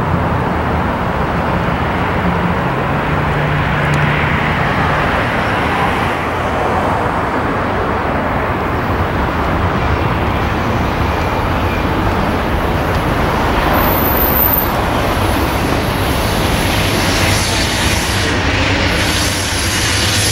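Approaching Amtrak GE P42DC diesel locomotive: a steady rumble of its engine and wheels on the rails, holding an even level throughout.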